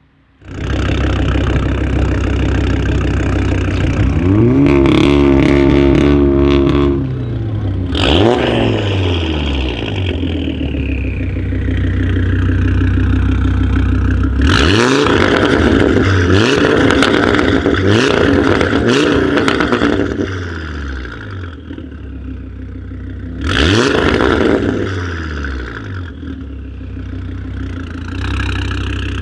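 Audi RS3's turbocharged five-cylinder engine through a custom straight-pipe exhaust with a crackle map, idling and being revved repeatedly: a held rev, single blips and a quick run of several blips in the middle, with crackles and pops as the revs drop. The sound starts abruptly about half a second in.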